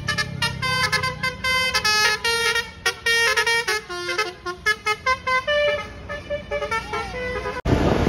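Bus telolet musical horn playing a quick tune of short horn notes that step up and down in pitch. Near the end it breaks off sharply and wind rushes over the microphone.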